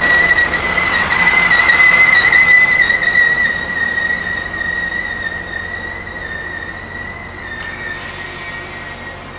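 A Virginia Railway Express commuter train rolls slowly into the platform. A single high, steady squeal comes from its running gear as it brakes, over the rumble of the cars. The squeal wavers slightly, is loudest about two seconds in, and fades as the train slows.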